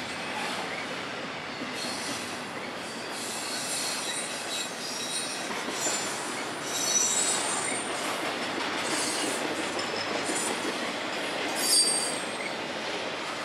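Double-stack container well cars rolling past with a steady rumble of wheels on rail. High-pitched wheel squeals come in short bursts several times, the loudest near the end.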